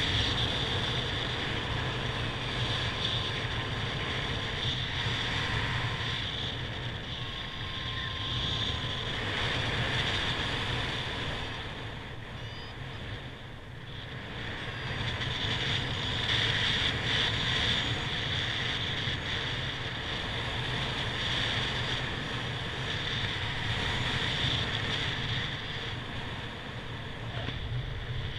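Wind rushing over a paraglider pilot's helmet or harness camera microphone in flight. It is a steady rush that swells and eases, with a brief lull about halfway through.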